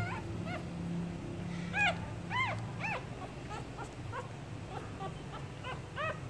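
Newborn puppies squeaking while nursing: many short, high squeaks, each rising and falling in pitch, loudest in a cluster about two seconds in and again near the end.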